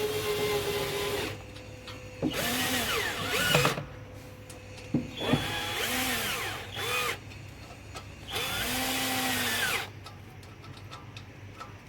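Cordless drill-driver running the camshaft bearing-cap bolts down on an engine's cylinder head, in four short runs. Each run's motor note rises and falls.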